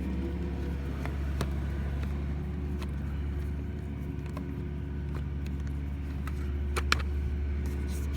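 Scattered sharp clicks and knocks of a car's interior trim panel and its bolt being worked loose, over a steady low hum; the loudest is a quick double click about seven seconds in.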